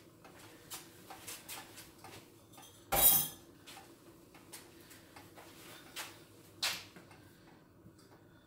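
Light clicks and ticks from a lidded saucepan on the stove, with a loud clank about three seconds in and a smaller sharp knock near seven seconds, over a faint steady hum.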